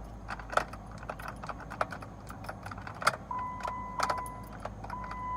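Many light, irregular clicks and jingles of the key ring at the ignition of a 2012 Jeep Wrangler JK that will not crank. About three seconds in, a steady high-pitched electronic tone starts.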